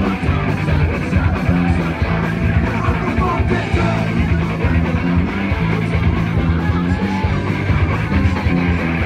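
Live punk rock band playing loud and fast, electric guitar over bass and drums, heard from inside the crowd at the front of the stage.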